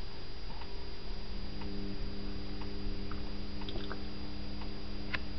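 SMA Sunny Boy SB1100 solar inverter humming steadily while converting almost 1 kW from the panels, with a thin high whine above the hum and a few faint ticks. The hum grows stronger about a second and a half in.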